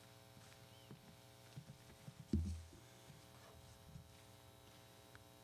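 Low, steady electrical hum on the audio feed with a few faint clicks, and a single dull low thump about two seconds in.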